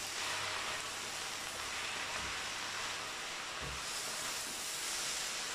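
Sour cabbage with onion braising in oil and water in a pot, a steady sizzle and hiss, with a couple of soft low knocks partway through.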